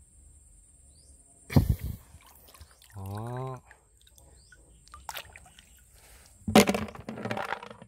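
Water splashing as a hand scoops freshwater snails out of shallow river water: one sharp splash about a second and a half in, then a longer stretch of splashing and sloshing near the end. A short hum-like vocal sound comes about three seconds in.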